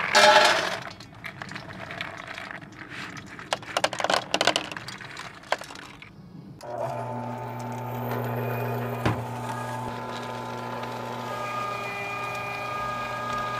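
Hard bait pellets poured and rattling onto the stainless steel tray of an electric meat grinder. About two-thirds of the way in, the Cabela's grinder's motor starts suddenly and runs with a steady hum as the pellets are fed in to be ground.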